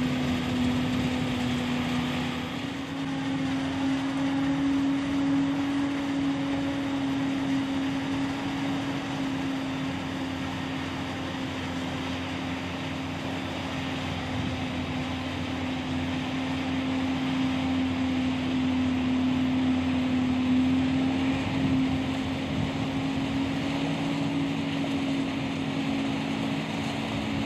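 Forage harvester chopping maize, with tractors pulling the trailers alongside: engines and chopper running under load as one steady droning hum that rises slightly in pitch about two and a half seconds in.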